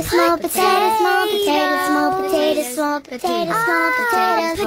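A song with a high, child-like singing voice carrying a melody, held notes bending up and down, with a short break about three seconds in.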